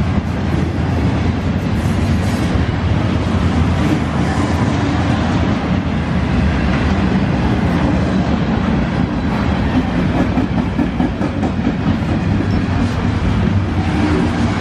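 Freight train's container-loaded flatcars rolling past, a loud steady rumble of steel wheels on the rails with repeated clicks as the wheels pass.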